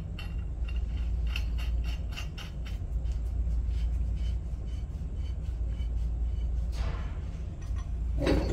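Pipe wrench working a threaded black iron pipe and union: a run of light metal clicks and ticks over a steady low hum, then a louder metal clank near the end as the second wrench is picked up.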